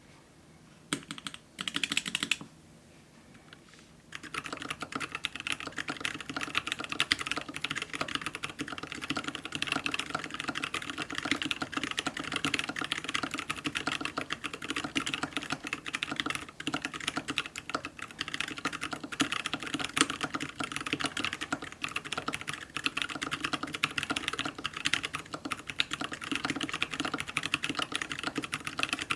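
Typing on a Maja mechanical keyboard with a brass plate, plate and case foam, and unlubed C3 Dragonfruit switches. A few loud knocks come about a second in, then a short pause, then fast, continuous typing starts about four seconds in and keeps going.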